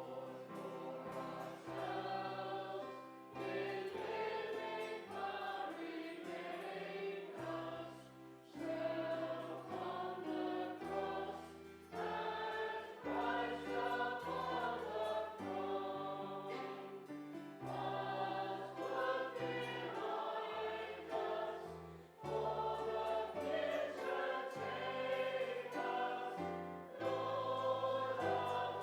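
A group of voices singing a hymn together with keyboard accompaniment, the bass moving in steady steps beneath the melody.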